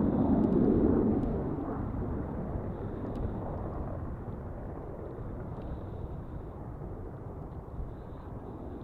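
Rotor and engine rumble of a pair of Apache attack helicopters flying away, loudest about a second in and then fading steadily into the distance.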